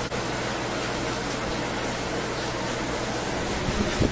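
Steady, even background hiss with a faint low hum. There are a few low bumps near the end.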